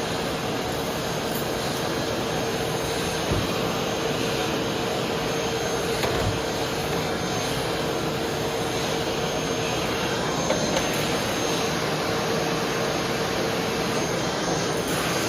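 Household vacuum cleaner running steadily, a constant rushing hiss with a steady hum tone, with a couple of brief knocks as it works over a floor.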